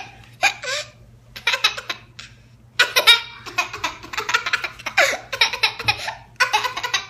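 A young girl laughing hard in a series of high-pitched bursts.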